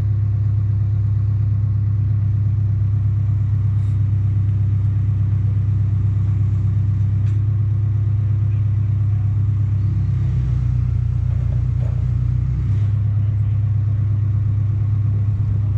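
A large engine running steadily with a low, even hum; its note shifts slightly about two-thirds of the way through.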